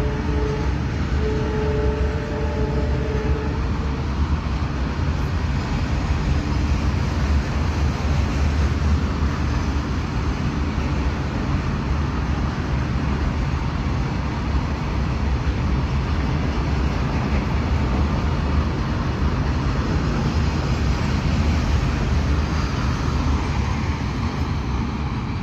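Long freight train of loaded wagons rolling past, a steady heavy rumble of wheels on rail. A train horn blows briefly at the start and again for about three seconds.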